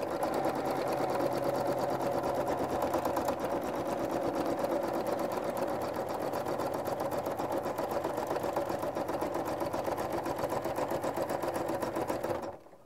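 Janome Horizon Memory Craft 8900 sewing machine running steadily in free-motion stitching, its needle pulsing rapidly as it sews yarn down through a couching foot; it stops abruptly near the end.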